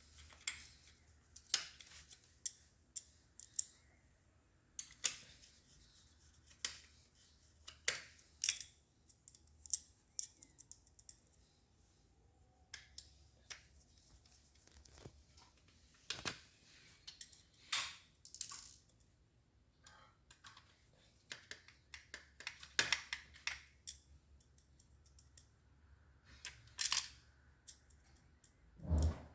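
Scattered, irregular clicks and knocks of plastic and metal parts being handled and fastened back together during reassembly of a copier's main drive gear assembly.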